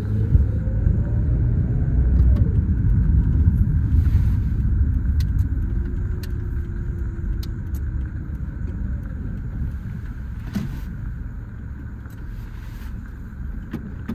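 Engine and road noise inside a small Toyota sedan's cabin. The engine note rises as the car accelerates over the first two seconds or so, then the car eases off and the rumble gradually dies down.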